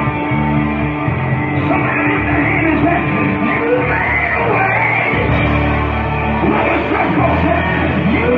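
Live gospel band playing loudly, with a steady bass line and a voice singing over it.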